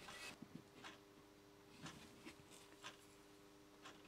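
Near silence: a few faint, short taps and scratches as a pencil marks lines along a spirit level held against the wall, over a faint steady hum.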